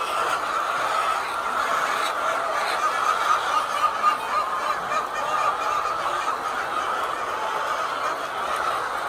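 A flock of laying hens clucking and chattering together in a steady, continuous din.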